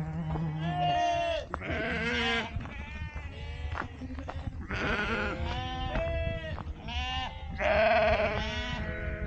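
Sheep bleating over and over, several animals calling in turn and overlapping, each bleat a wavering, quavering call. The loudest come about two seconds in and near the end, over a low rumble of wind on the microphone.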